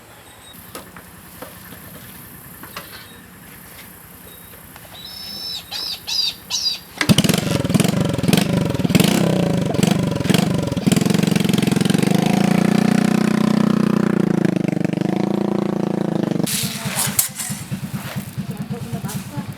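A motorcycle engine that starts abruptly about seven seconds in, runs with its pitch rising and falling for several seconds, then drops to an even, rapid idle near the end. A few short high chirps sound just before it.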